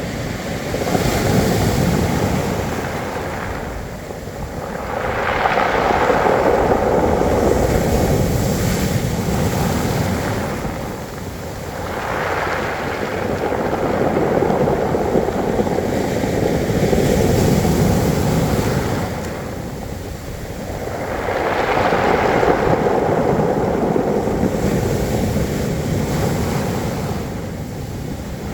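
Sea waves breaking and washing up a pebble beach, the surge swelling and easing in slow cycles, about four times.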